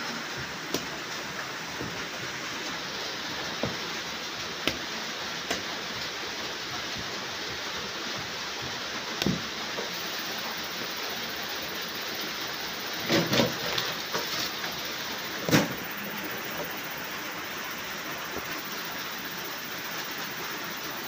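Steady rain hiss, with scattered knocks and scrapes of a wooden cooking stick against a metal pot as stiff ugali is stirred and pressed. The loudest knocks come in a short cluster a little past halfway, followed by one sharp knock.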